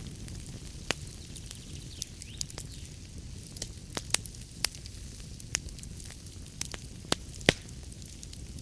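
Wood fire burning in a fireplace: a steady low rumble of flames with sharp, irregular crackles and pops from the burning logs, one louder pop near the end.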